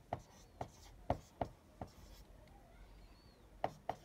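Marker pen writing numbers on a whiteboard: a run of short, sharp taps as each digit is stroked, a pause of about two seconds, then two more taps near the end.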